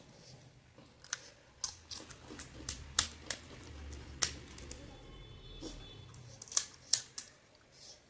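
Crisp panipuri shells cracking: a dozen or so sharp, brittle clicks and cracks at irregular intervals, over a low rumble.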